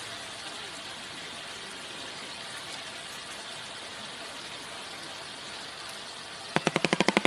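Steady hiss of background noise, then near the end a shoebill starts clattering its bill: a loud, rapid machine-gun-like rattle of about eight claps a second.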